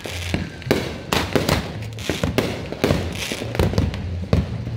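Firehawk 'Beast' 500 g firework cake firing: a rapid, steady string of shots and aerial bursts, about two to three reports a second.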